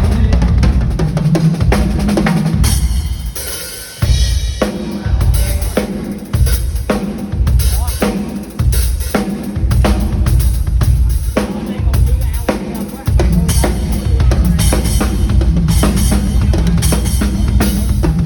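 Yamaha Absolute drum kit played in a steady beat: bass drum, snare with rimshots, and cymbals, with a short break about four seconds in.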